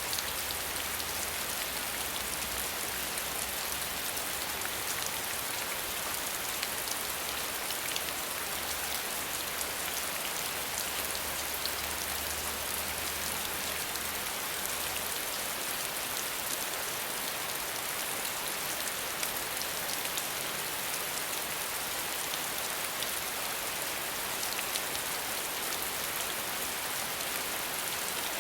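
Steady rain without thunder: an even hiss of falling rain with many small drop ticks throughout.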